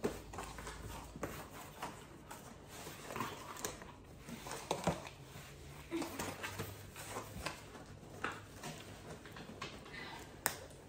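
Irregular rustling, crinkling and light knocks of packaging being handled and opened, with a faint steady low hum underneath.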